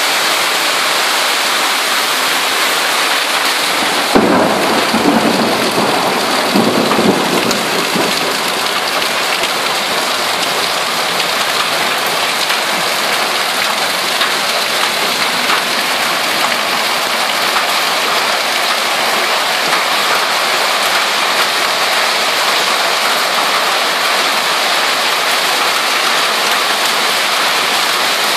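Heavy hailstorm: hailstones and rain pelting a paved street in a loud, dense, steady hiss, swelling louder for a few seconds about four seconds in.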